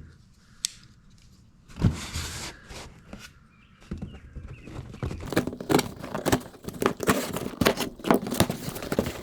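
A cardboard box being opened by hand: a single knock about two seconds in, then rustling, crackling and tearing of cardboard and packing that grows busier through the second half.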